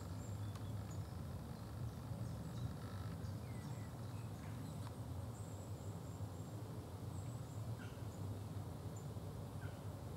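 Faint, scattered short chirps and calls of small woodland birds over a steady low background rumble.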